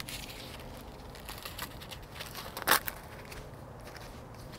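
Corn husk being peeled by hand off an ear of corn: dry crinkling and crackling of the leaves, with one louder rip a little past halfway.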